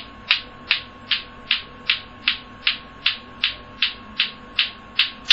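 Bate-bate clacker toy: two hard plastic balls on strings knocking together in a steady rhythm, about two and a half sharp clacks a second.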